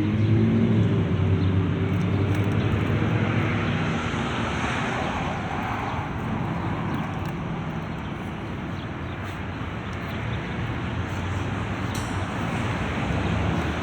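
Street traffic passing: a vehicle engine pulls away and rises in pitch at the start, then steady road noise from passing cars swells and slowly fades.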